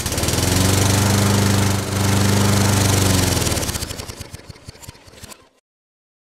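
Small petrol lawn mower engine running with a fast, even firing beat, dipping briefly about two seconds in, then fading away and stopping about five and a half seconds in.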